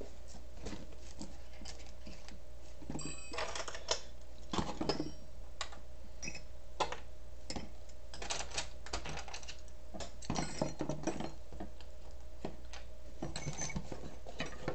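Irregular light clicks and short spells of clatter, like small hard objects being handled on a desk, over a steady low hum.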